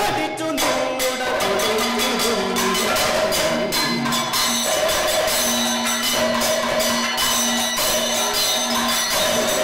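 Kathakali accompaniment: chenda drum strokes played with a curved stick, with the metallic ringing of a hand-held chengila gong and small ilathalam cymbals keeping time. Held sung notes run over the percussion.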